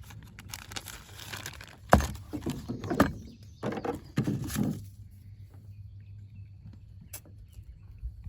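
Parts of an oil separator kit being handled: rustling packaging and several hard knocks, the loudest about 2, 3 and 4 seconds in, then a single click near the end.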